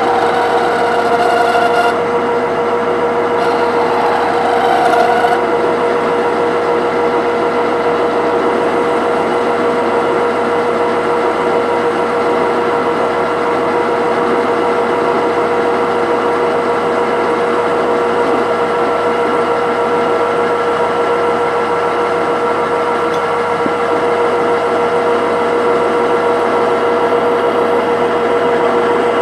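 IZh 1I611P metal lathe running under power, its spindle turning an old reamer in a newly fitted chuck for a trial cut: a steady machine whine over a constant mechanical hum. Brief higher-pitched noise comes in twice in the first six seconds.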